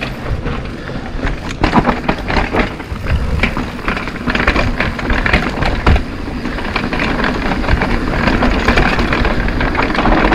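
Mountain bike rolling fast down a dirt singletrack: steady tyre and rushing noise with frequent sharp knocks and rattles as the bike hits bumps.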